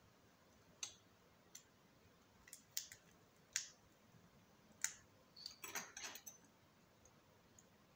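Irregular sharp clicks and taps of metal tweezers against small parts and the frame of an opened smartphone, a single click every second or so, then a quick run of several clicks near the six-second mark.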